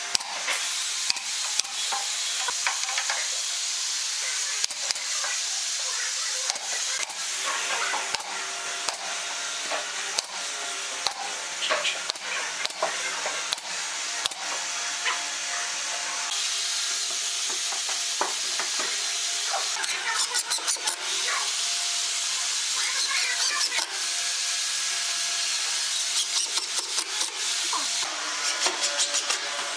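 Pneumatic brad nailer firing into pine boards: sharp snaps, mostly one at a time, with a few quick runs of several shots. A steady hiss sits under it.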